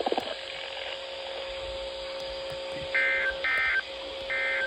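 NOAA Weather Radio SAME end-of-message data bursts closing a Required Weekly Test: three short, raspy two-tone digital bursts, starting about three seconds in and coming about half a second apart. Under them a steady low tone runs and drops out briefly near the end.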